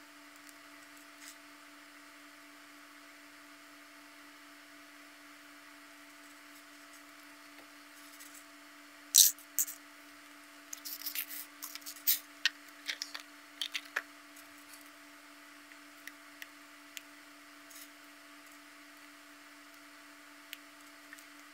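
Small plastic twisty-puzzle parts being handled and fitted together: one loud click about nine seconds in, then a run of sharp clicks and short rubs for a few seconds, and a few scattered ticks later, over a faint steady hum.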